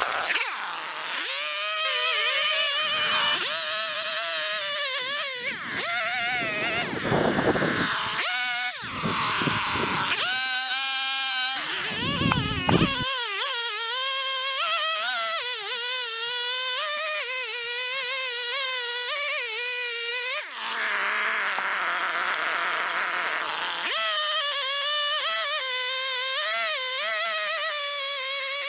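Husqvarna two-stroke chainsaw running at high throttle while cutting through a white oak log. Its engine pitch wavers up and down as the chain bites into the wood, with a few short breaks in the tone.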